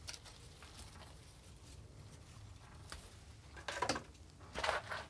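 Soft rustling and scratching of potting soil mixed with perlite as it is worked down around a spider plant's roots, with two louder rustles near the end.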